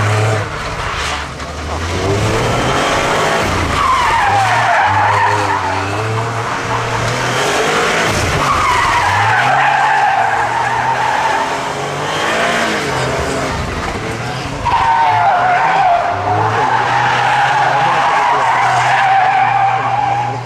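Toyota GR Yaris rally car with a turbocharged three-cylinder engine doing donuts around a pylon on tarmac. Its tyres squeal in three long drawn-out squeals, the last the loudest, while the engine runs at steady revs.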